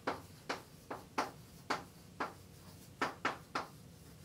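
Chalk writing on a blackboard: about ten quick, uneven taps and short strokes as letters are written.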